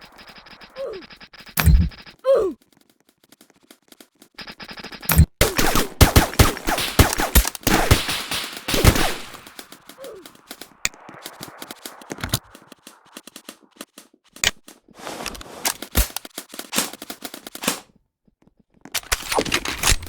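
Airsoft guns firing: scattered single shots, then rapid bursts, the longest lasting several seconds in the middle and more bursts near the end.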